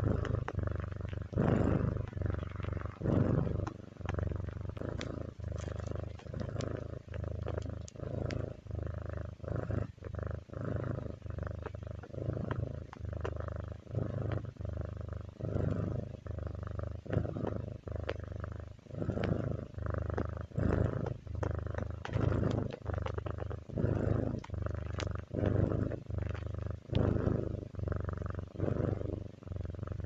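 Turkish Angora cat purring steadily while being stroked on the head, the purr swelling and fading with each breath.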